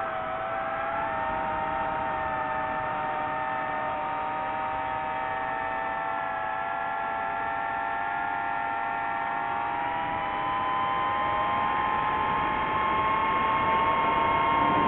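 DJI FPV drone's motors and T-Motor T5143S propellers whining in flight: several steady tones that drift in pitch together. About ten seconds in they rise in pitch and get a little louder as the throttle goes up.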